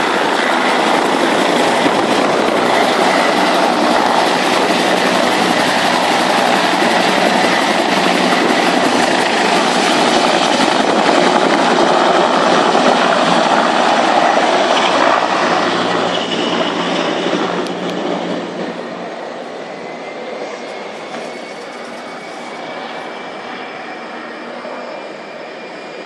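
Turbine Bell helicopters (Bell 407s and a Bell 222) lifting off and flying away, their engine and rotor noise loud and steady at first, then fading out over a few seconds about two-thirds of the way through.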